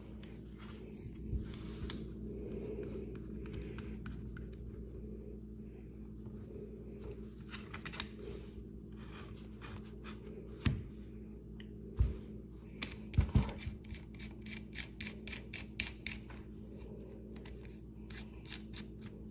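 Hands working a pistol slide and a sight-fitting tool: light scraping and rubbing of small metal parts, with a few sharp clicks and knocks about halfway through, the loudest sounds here.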